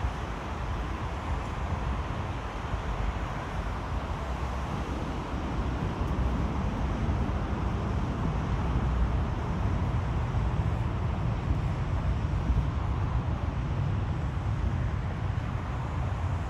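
Steady low rumble of trains and city background noise with wind on the microphone, growing a little louder about six seconds in.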